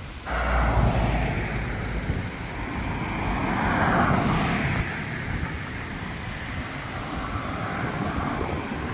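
Honda Rebel 1100 motorcycle on the move, engine rumble mixed with wind noise on the microphone. The sound comes in suddenly just after the start, swells about halfway through, then settles.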